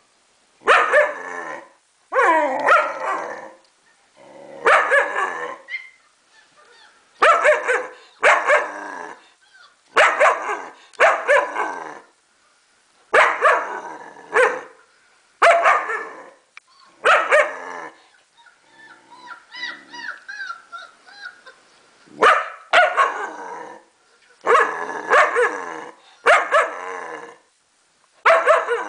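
German shepherd barking over and over, drawn-out barks about every second or two. In the middle there is a few-second stretch of faint, high whimpering.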